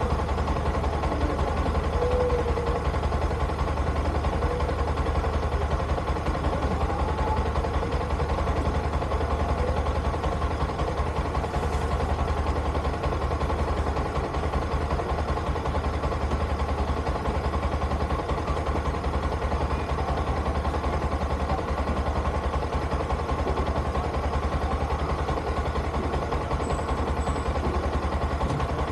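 Motorcycle engine idling steadily, a rapid even pulsing with a strong low hum that holds unchanged throughout.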